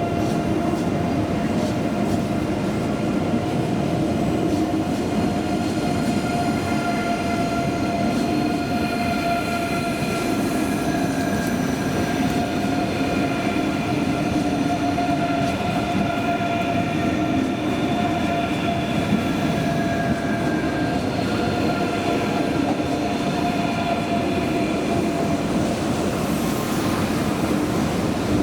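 ICE3 high-speed electric train pulling away, its traction equipment whining in several steady tones over a continuous rolling rumble from the wheels.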